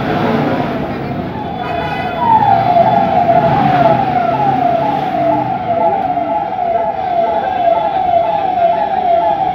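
Vehicle siren sounding a fast, repeating falling sweep, about two sweeps a second, growing louder about two seconds in.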